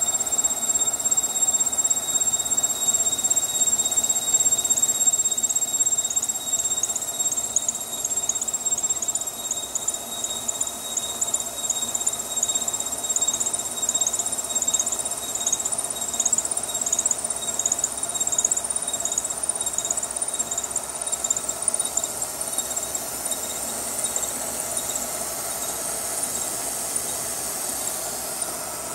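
Radius cutter on a milling machine cutting the head of a stainless steel T-bolt, giving a steady high-pitched whine over the hiss of mist coolant spray. The upper part of the whine wavers through the middle of the cut.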